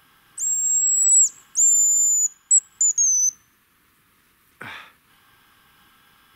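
Hazel grouse decoy whistle blown to imitate the bird's song: two long, very high, thin whistles, then three short notes, the last falling slightly in pitch.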